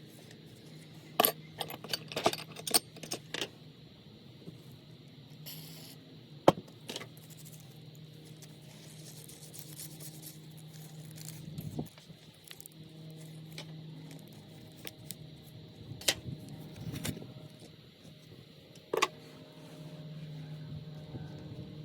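Small metal parts and tools clinking and tapping as they are handled, in scattered clusters of sharp clicks over a steady low hum.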